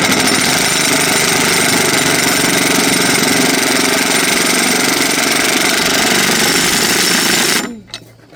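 A cordless impact wrench hammering continuously for several seconds to break a stubborn part loose, then stopping near the end.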